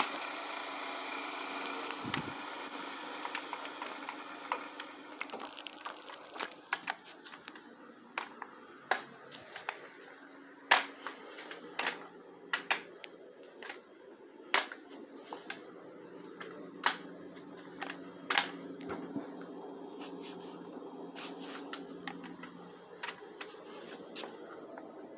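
Scattered sharp clicks, about one every second or two at uneven intervals, over a faint steady low hum.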